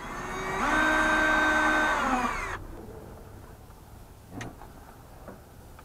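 Power drill running for about two seconds, its pitch stepping up as it spins up and sliding down as it winds down before it stops; a short knock follows a couple of seconds later.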